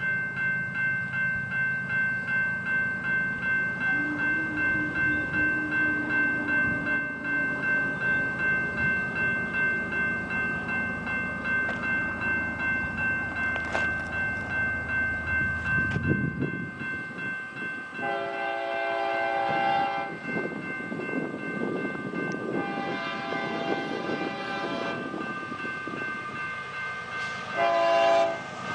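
A railroad crossing bell rings rhythmically as a freight train approaches. Its locomotive horn then sounds the crossing signal: two long blasts and a short one, over the growing rumble of the train.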